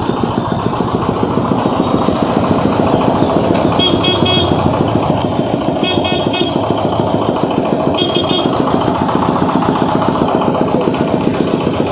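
Yamaha MT-15's 155 cc single-cylinder engine running at low revs as the motorcycle is ridden slowly. Three short high-pitched beeps sound about two seconds apart in the middle.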